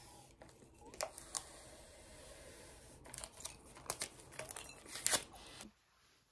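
Paper label being torn and peeled off a plastic water bottle: a run of tearing and crinkling with scattered sharp crackles, stopping suddenly near the end.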